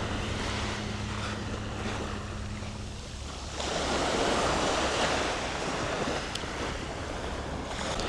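Sea waves washing onto a shingle beach on an incoming tide, with wind buffeting the microphone; the surf swells louder about three and a half seconds in. A faint low hum runs under the first three seconds or so.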